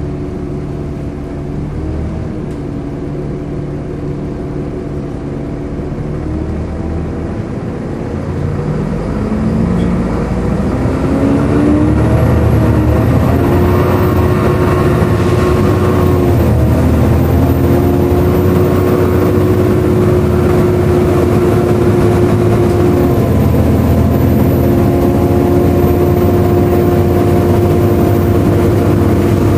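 Volvo B7LA bus's seven-litre six-cylinder diesel engine and its loud, hoover-like cooling fan running. The engine note rises and falls for the first twelve seconds, then the sound grows louder and holds steady.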